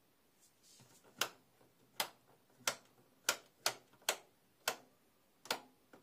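Indesit IWDD7123 washer dryer's rotary programme selector dial turned step by step, clicking through its detents: about nine sharp clicks at uneven intervals, one for each programme position passed.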